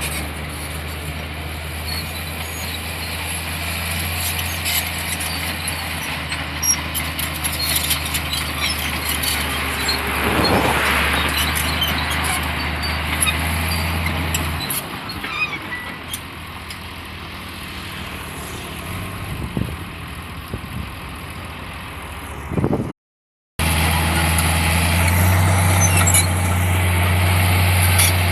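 Diesel engine of a heavy earthmoving machine running steadily, with scattered clanks. The engine note drops about halfway through; near the end the sound cuts out for a moment and the engine comes back louder and steadier.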